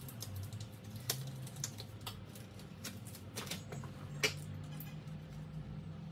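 Scattered light clicks and ticks, the sharpest about four seconds in, over a faint low hum.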